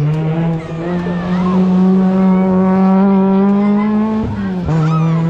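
Racing car engine at high revs accelerating, its pitch climbing steadily, then a quick upshift about four seconds in drops the pitch before it pulls on again.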